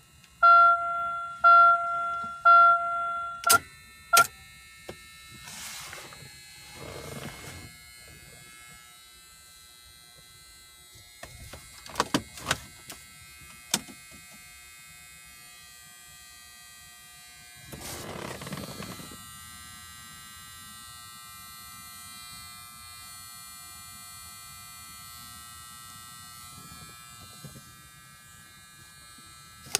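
Chevy Cobalt's dash warning chime sounding three times about a second apart, with the cluster powered up again and its warning lights lit. Scattered clicks of switches and stalks follow, over a faint steady hum.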